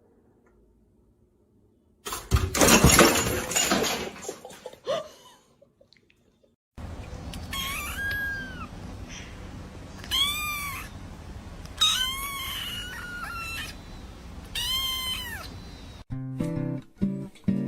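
Domestic cat meowing about five times, each meow rising and then falling in pitch. Before the meows there is a loud burst of noise lasting about three seconds, and guitar music starts near the end.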